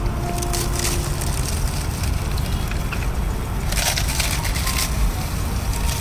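Crisp, papery roti tissue being torn and crushed by hand in plastic gloves: crackling and crunching in bursts, loudest about a second in and again about four seconds in, over a steady low rumble.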